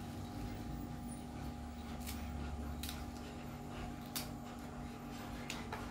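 A knife cutting and peeling the leaf sheaths of a terubuk (edible sugarcane flower) stalk: a few short, crisp snaps about a second apart, over a steady low hum.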